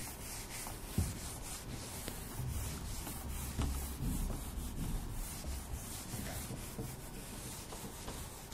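A whiteboard eraser rubbing across a whiteboard in repeated wiping strokes, with a light knock about a second in.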